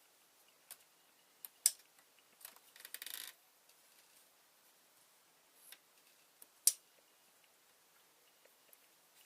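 Scattered sharp clicks from a plastic rubber band machine gun, with a brief rapid rattle of clicks about three seconds in and two louder single snaps.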